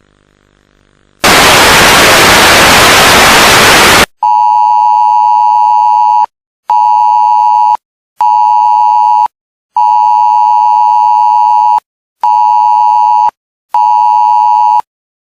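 Mock Emergency Alert System alert: a loud burst of static hiss lasting about three seconds, then a harsh two-tone alert beep sounding six times in a long-short-short pattern, repeated twice.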